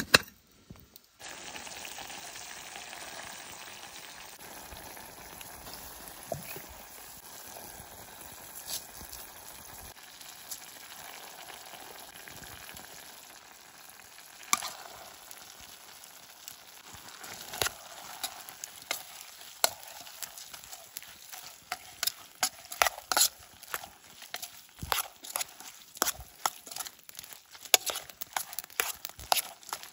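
Beef and mixed vegetables frying in a pan with a steady sizzle, the spatula clacking and scraping against the pan more and more often through the second half.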